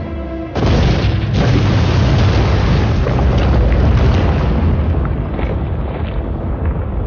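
Film sound effect of a blast from the ground: a sudden boom about half a second in, a second blast less than a second later, then a deep rumble that slowly fades, with music faintly under it.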